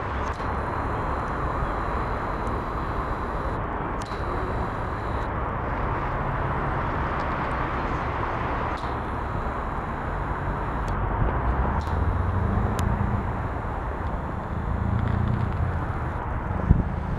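Wind buffeting the microphone, an uneven low rumble over a steady outdoor hiss.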